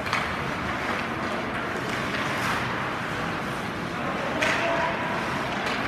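Ice rink ambience during a youth hockey game: a steady wash of noise with skates scraping the ice, and two louder scrapes at about two and a half and four and a half seconds in.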